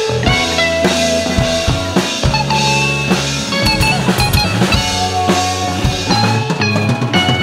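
Band playing an instrumental passage: electric guitar, electric bass and a drum kit with bass drum and snare, no vocals.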